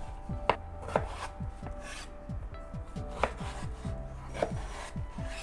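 Chef's knife slicing raw russet potatoes into wedges on a bamboo cutting board. Each cut ends in a sharp knock of the blade on the board, several knocks spaced unevenly about a second apart.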